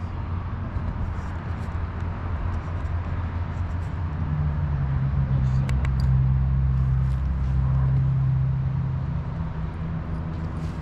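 Engine drone that grows louder about four seconds in and eases off near the end, like a passing motor, with a few faint ticks in the middle.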